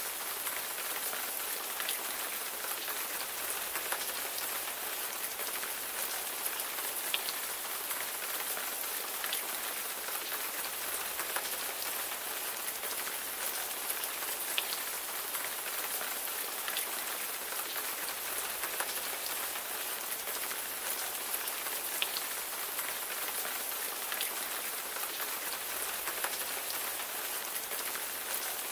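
Steady rain falling, an even hiss with scattered individual drop ticks on a hard surface.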